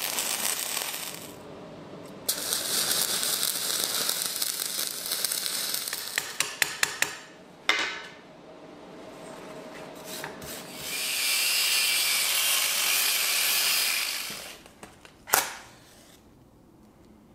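Electric welding arc on mild steel crackling and hissing in bursts that start and stop abruptly, with a run of sharp clicks midway. A single sharp crack comes near the end.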